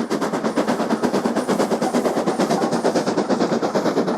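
Steam locomotive working hard, its exhaust beating in a fast, even rhythm of several chuffs a second.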